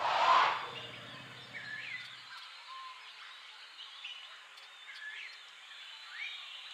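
Wild birds calling with short whistled notes, some rising and some falling, repeated every second or so over a steady outdoor hiss. A loud rush of noise opens it for about half a second, and a low hum fades out about two seconds in.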